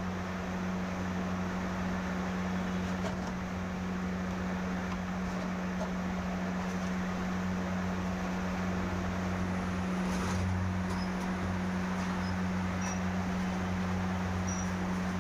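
Steady low electrical hum under an even hiss, with a few faint clicks after about ten seconds.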